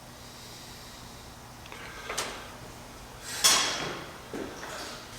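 Hand tools and metal parts being handled at a workbench: a short scrape about two seconds in, a louder sliding clatter about three and a half seconds in, and a soft knock near the end.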